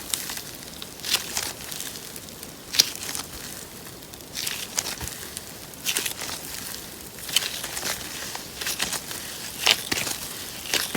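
Paper-clay slime being squeezed and pressed by hand, giving short crackling, squishy pops about once a second.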